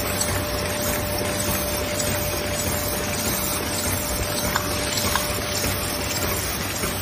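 Wine-bottle capsule making machine running: a steady, even mechanical noise with a thin steady tone through it, and a couple of faint clicks about four and a half and five seconds in.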